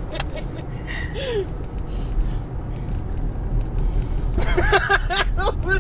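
Steady low road and engine rumble heard inside a moving car's cabin. About four and a half seconds in, people laugh: a run of quick, high, rising-and-falling bursts lasting about a second.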